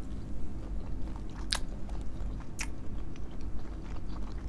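A person chewing food close to the microphone, with a few sharp wet mouth smacks, the clearest about one and a half and two and a half seconds in.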